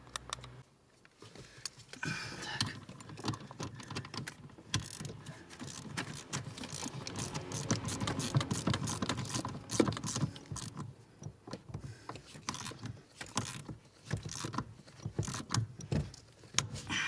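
Hand ratchet wrench clicking in quick, uneven runs as a bolt is tightened, starting about a second in.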